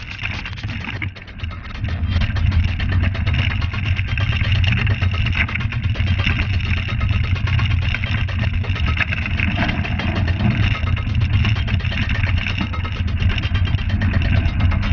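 Mountain bike ridden fast down a rocky gravel trail, heard from a handlebar-mounted camera: wind rumbling on the microphone, with tyres crunching over loose stones and the bike rattling over rocks. It gets louder about two seconds in as the speed picks up.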